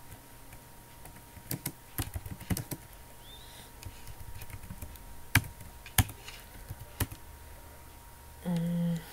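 Laptop keyboard keys clicking as a terminal command is typed: a quick cluster of keystrokes, then a few single sharper key strikes spaced about a second apart.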